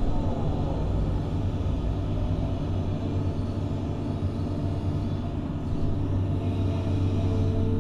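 Doosan DX180 excavator's diesel engine running under load with its hydraulics working as the boom lifts, heard from inside the cab: a steady low drone, with higher tones falling in the first second and shifting again near the end.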